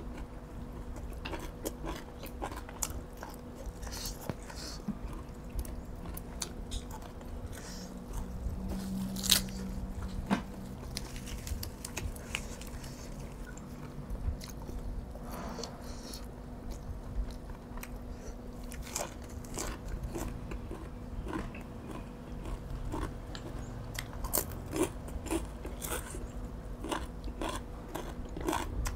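A person chewing and crunching food close to the microphone: mouthfuls of boiled field snails and crisp raw vegetables, with many short crunches and clicks throughout. The loudest crunch comes about nine seconds in.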